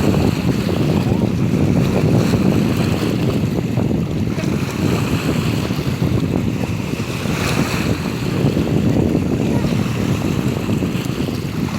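Wind blowing hard across the microphone, an uneven low rumble, with the sea's waves washing in underneath.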